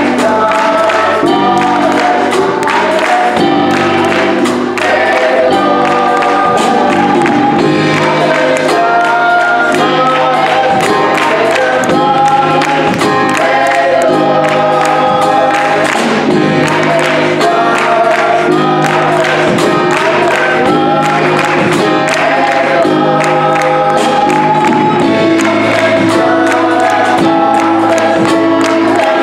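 Gospel choir of young voices singing in harmony, backed by a live electric bass and drum kit keeping a steady beat.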